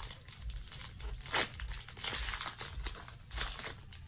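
Foil wrapper of a Pokémon booster pack crinkling as it is opened and handled, in irregular crackles, the sharpest about a second and a half in and another near the end.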